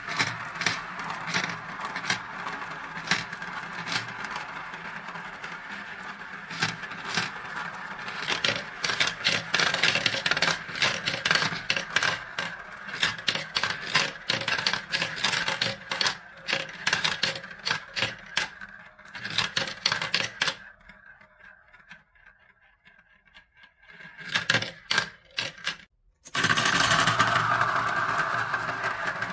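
Balls rolling and clattering through a plastic marble run: a steady rolling whirr as they circle a plastic funnel, with many quick clicks as they drop into tubes and knock along the track pieces. There is a brief lull about two-thirds of the way in. After a sudden cut near the end, a steady rolling whirr of glass marbles spinning around the funnel.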